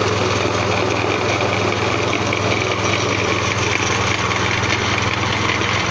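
Motor-driven fish-feed pellet machine running steadily, a constant engine-like drone.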